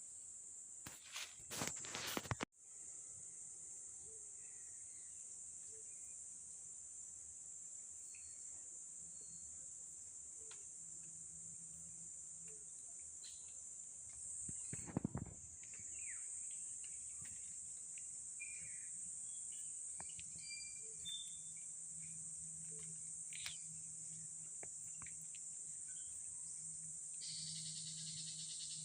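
Steady high-pitched chorus of insects shrilling without a break, with a few sharp clicks in the first couple of seconds and one brief louder low rumble about halfway through.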